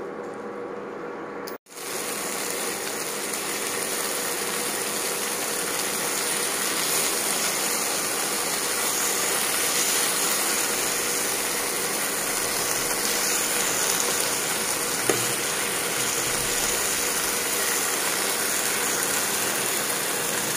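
Marinated chicken breast pieces sizzling steadily as they shallow-fry in a little fat in a non-stick pan. The sound cuts out briefly about a second and a half in and comes back louder.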